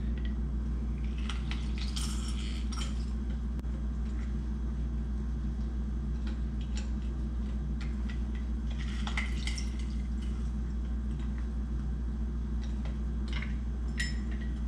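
Lemon halves being pressed in a handheld hinged lemon squeezer over a small bowl: brief squishes and clicks come a few times, about two seconds in, around nine seconds, and near the end. Under them runs a steady low hum.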